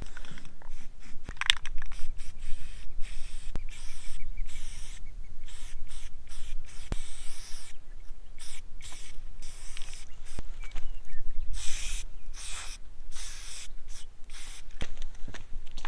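Aerosol spray-paint can hissing in many short bursts with brief pauses between them as a mailbox is painted over.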